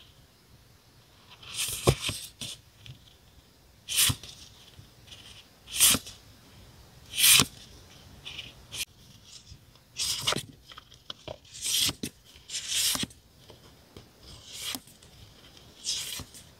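Paper sticker and label sheets handled at a desk: about a dozen short, crisp rustling and tearing sounds at irregular intervals, with a light knock on the desk about two seconds in.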